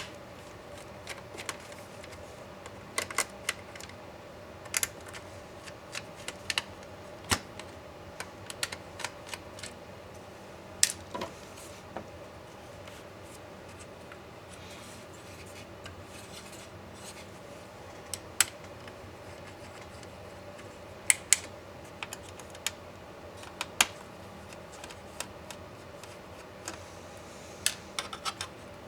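Irregular sharp clicks and taps of small tools and plastic case parts being handled while an MSI GT72VR laptop is taken apart.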